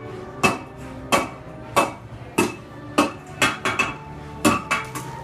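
Blacksmith's hammer striking metal on an anvil: a series of sharp, ringing blows, a little under two a second.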